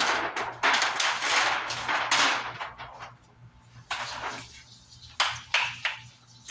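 A large flexible sheet rustles and crackles loudly as it is lifted and handled, then after a short pause a hand trigger spray bottle sprays in a quick string of short hisses.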